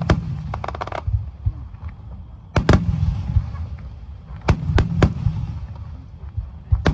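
Aerial firework shells bursting: a quick cluster of sharp bangs in the first second, a loud bang about two and a half seconds in, a few more around four and a half to five seconds, with a low rumbling echo in between.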